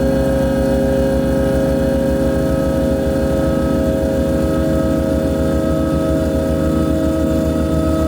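Loud, steady electronic drone of several held tones over a fast, even throb in the low end: refrigerator hum mangled through effects into harsh noise.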